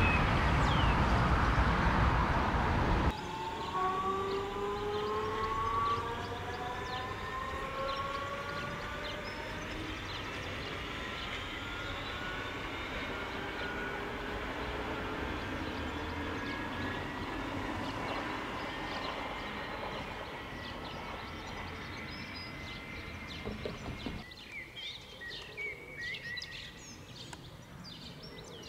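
An electric train passing close by, then an electric train pulling away, its traction motors giving a whine of several tones that slowly rises in pitch as it accelerates and fades out. Birds chirp faintly near the end.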